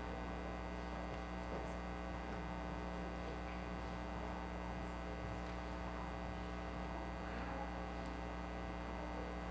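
Steady electrical mains hum on the sound system's feed, with a few faint rustles.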